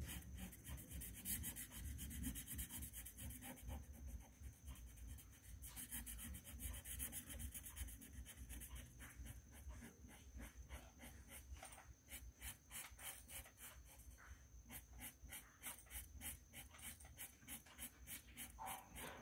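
A crayon scribbling back and forth on a colouring-book page: a faint, fast, rhythmic scratching of about five strokes a second.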